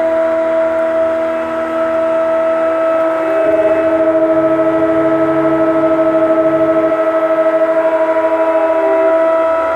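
Ship's deck crane machinery running with a loud, steady whine of several held tones as the crane slews; from about three seconds in the loudness pulses quickly, easing off near the end.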